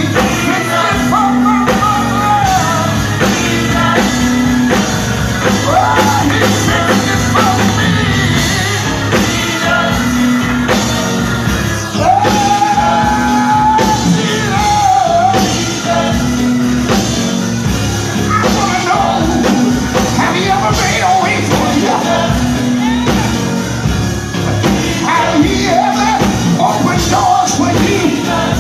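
A voice singing with instrumental accompaniment, holding one long note about twelve seconds in.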